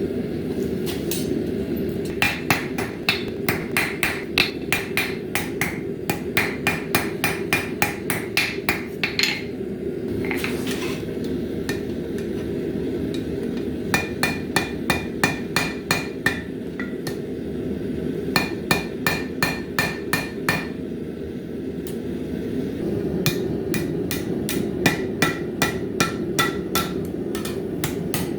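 Hand hammer forging hot high-carbon steel on an anvil: quick runs of blows, several a second, with short pauses between the runs and a ringing note on many strikes. A steady low rumble runs underneath.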